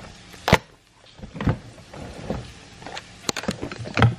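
Several sharp knocks and clicks at irregular intervals from handling things on a kitchen counter, the loudest about half a second in.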